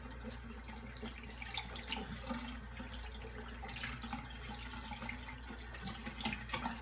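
Water running from a bathroom tap into the sink as a shaving brush is rinsed under it, with small irregular splashes.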